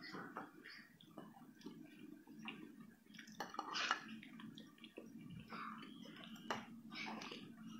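Faint wet mouth sounds of someone eating food in sauce: scattered smacks, slurps and chewing clicks, over a low steady hum.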